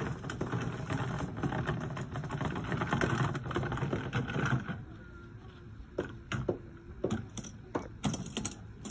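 Murmur of an outdoor crowd for the first half. From about five seconds in it gives way to a scatter of sharp, irregular clicks and taps.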